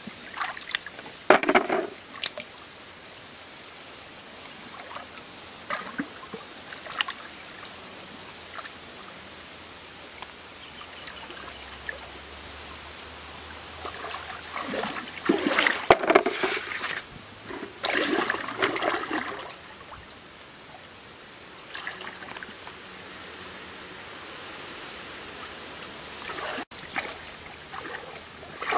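Hands sloshing and splashing in shallow muddy stream water while feeling along the bottom, in irregular bursts that are loudest after the middle, over a steady background hiss.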